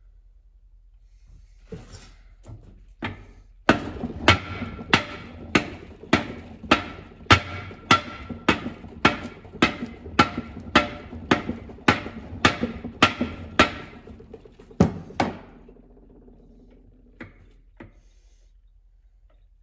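Hammer blows on steel, driving the input shaft out of an Allis-Chalmers B tractor transmission, the shaft moving under the blows. A few light taps, then about eighteen steady, ringing strikes at roughly one and a half a second, then a few last blows near the end.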